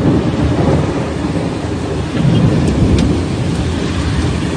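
Thunderstorm: heavy rain hissing steadily under a low rumble of thunder that swells about two seconds in.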